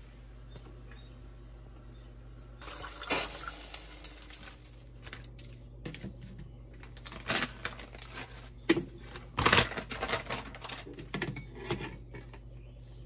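Irregular knocks and rustles of blocks of dried instant ramyeon noodles and other ingredients being handled and set down on a stainless-steel tray. They begin about three seconds in, and the loudest come around the middle.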